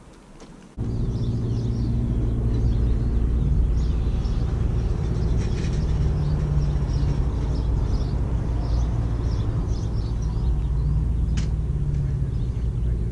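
Steady low rumble with a continuous hum that cuts in abruptly about a second in, with faint irregular high chirps over it.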